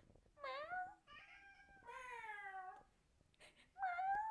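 Domestic cat meowing several times: a short rising meow, a long meow that falls in pitch, and a louder rising meow near the end.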